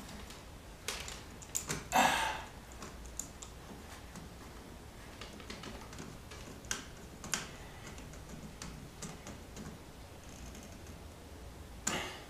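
Scattered small clicks and taps, with a brief rustle about two seconds in, from hands threading insulated wire and working a small tool at a screw-type barrier terminal strip on a plywood layout board.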